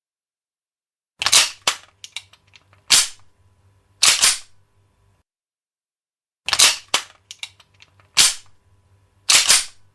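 A gun's action being cocked: a run of sharp metallic clacks with small rattling clicks between them, about four loud ones over three seconds. The same run plays twice, about five seconds apart, with silence between.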